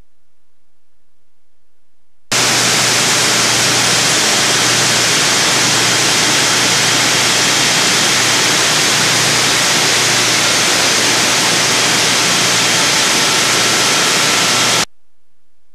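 Loud, even static hiss, like white noise, that switches on abruptly about two seconds in and cuts off sharply near the end.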